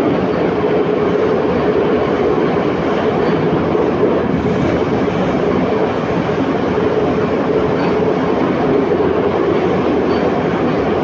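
Metro car of type 81-714.5 running along the track, heard from inside the car: a steady loud rumble of wheels on rails with a steady hum.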